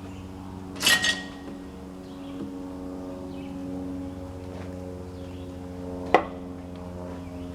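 Metal parts clanking on a sawmill carriage as safety stops are set against the log: a quick double clank about a second in and one sharp ringing clank about six seconds in. Under them runs a steady low machine hum.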